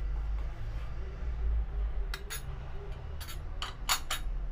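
A metal spoon clinks against the side of a stainless steel saucepan of boiling tea, stirring in jaggery to melt it. About six sharp clinks come in the second half, over a steady low rumble.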